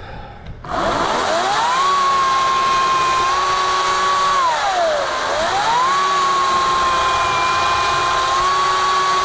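Ryobi 40-volt 14-inch battery chainsaw starting up about half a second in with a rising whine from its electric motor and chain, then running at a steady high speed. About five seconds in the pitch drops sharply and climbs straight back up.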